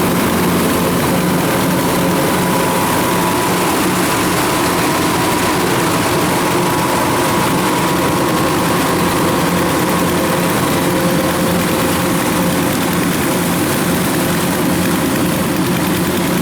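Kubota combine harvester's diesel engine running steadily at working speed, a constant drone with a hiss over it.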